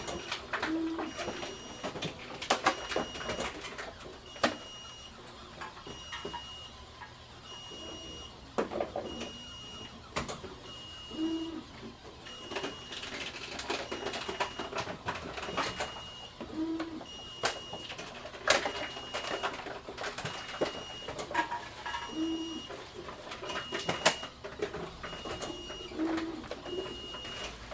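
Grocery store bottle return machine running: irregular clicks and clatter of containers, with a faint high beep repeating about every one and a half seconds and short low tones every few seconds.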